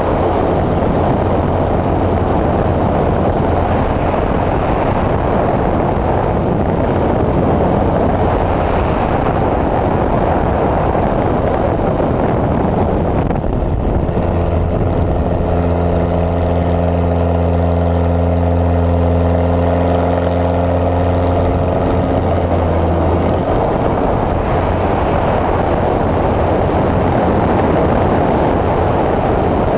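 Pitts S-1S aerobatic biplane's engine and propeller running loud and steady over a rush of airflow noise. From about 14 to 23 seconds the engine's drone comes through as a clear, steady hum.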